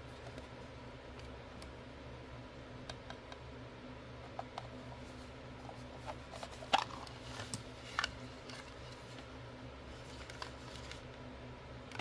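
Small hard-plastic toy playset being handled and turned over: scattered light clicks and taps of plastic, with a louder cluster of clacks a little past the middle. A steady low hum sits underneath.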